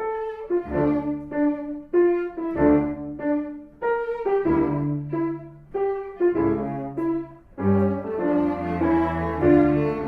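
Background music: bowed strings, cello and violin, playing a melody in short detached notes, with piano.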